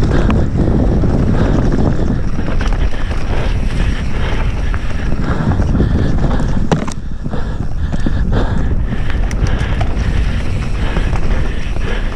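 Wind buffeting the camera's microphone as a mountain bike descends a dirt forest trail at speed, with the tyres rumbling over the ground. Scattered sharp clicks and knocks, from about the middle on, are the bike rattling over bumps.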